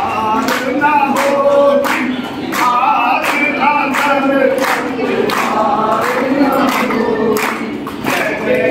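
A group of devotees singing a Hindi devotional song together, led by a male voice, with a steady beat of sharp claps about twice a second.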